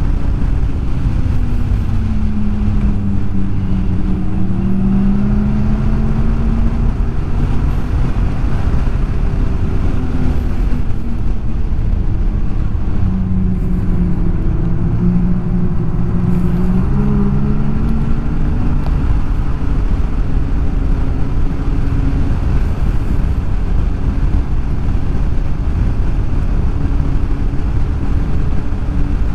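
Snowmobile engine running under way, its pitch dipping and rising several times as the throttle changes, over a constant low rumble.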